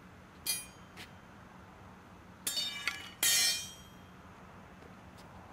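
Metal clinking and ringing: two light clinks, then a cluster of clanks about two and a half seconds in and a louder ringing clank just after three seconds.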